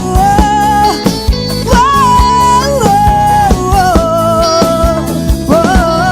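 Sertanejo pop song playing a wordless passage: a held, wavering lead melody over guitar chords, bass and a steady kick drum.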